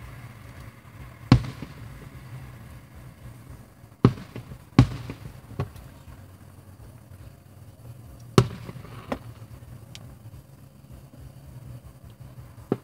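Aerial firework shells bursting overhead: a sharp bang every few seconds, five loud ones with a couple of fainter pops between.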